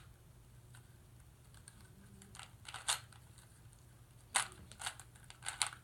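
3x3 Rubik's cube being turned by hand: sharp plastic clicks of its layers twisting, coming in short quick runs after a couple of seconds with none.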